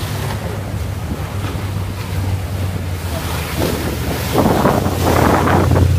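Offshore powerboat engines running at speed over choppy water, with waves and wind buffeting the microphone under a steady low engine hum. A speedboat passes close in the second half, and the rush of its engine and spray swells there.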